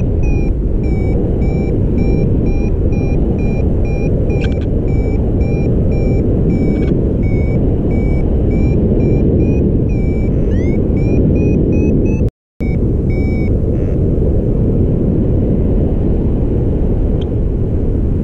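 Paraglider variometer beeping a few times a second, the climb tone of a glider in lift, with the pitch rising once as the climb strengthens. Heavy wind rush on the microphone runs throughout. The beeping stops about two-thirds of the way through, after the sound briefly cuts out.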